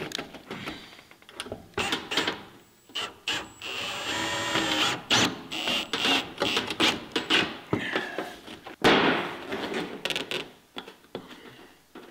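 Cordless drill driving screws into a ribbed steel roofing sheet: a steady motor whine about four seconds in, amid knocks and clatter from the thin steel panel being pressed and handled.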